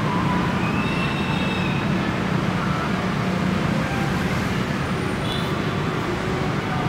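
Steady road traffic noise, a low even rumble, with a few faint short high chirps over it.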